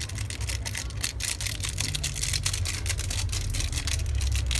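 Wooden spatula stirring and scraping through a simmering cream sauce in a pan, a rapid run of small clicks and scrapes over a low steady rumble.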